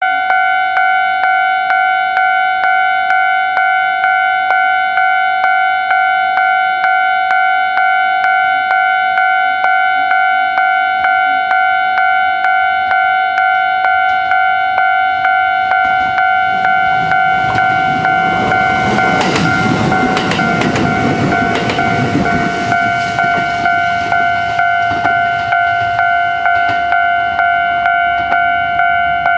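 Japanese level-crossing warning bell ringing in a steady, rapid repeating ding. About halfway through, a train runs over the crossing with a rising rumble that is loudest a few seconds later and then fades, while the bell keeps ringing.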